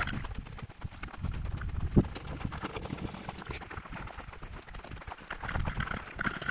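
Footsteps crunching and clattering on loose rock scree as hikers walk downhill, an uneven run of steps, with one sharp knock about two seconds in.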